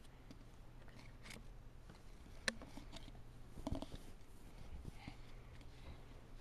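Faint taps and clicks of small toy dishes and pretend food being handled by a toddler, with one sharper click about two and a half seconds in and a few knocks close together a second later.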